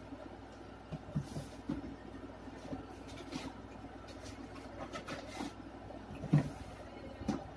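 Scattered faint knocks and clatters of a person moving about a small room and rummaging for a spoon, with one louder thump about six seconds in, over a steady low hum.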